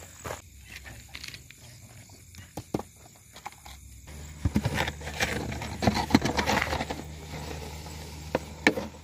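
Crunching and scuffing on loose gravel, a string of irregular clicks that grows busier about four seconds in. At the same point a steady low hum starts.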